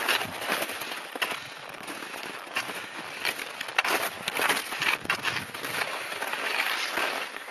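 Skis sliding through snow: an uneven hiss with many short crunchy crackles as the skier glides and turns.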